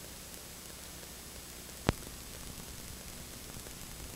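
Steady hiss and low hum of an old videotape recording, with one sharp click about two seconds in.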